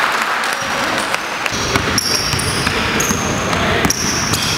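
Basketball game in play: sneakers squeaking in short high chirps on the court floor, with the ball bouncing.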